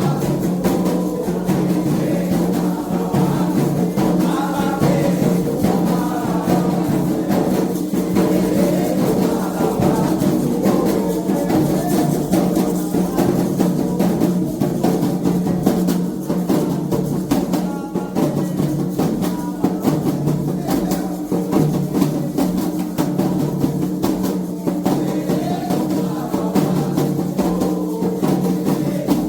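Candomblé toque: atabaque hand drums playing a steady, driving rhythm, with voices singing a chant over them at times.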